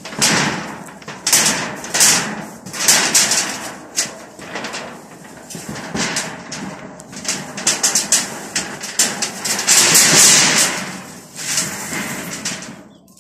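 A corrugated roofing sheet scraping and rattling against a wooden pole frame as it is slid and pushed into place. It comes as a series of irregular scrapes and knocks, the longest and loudest about ten seconds in.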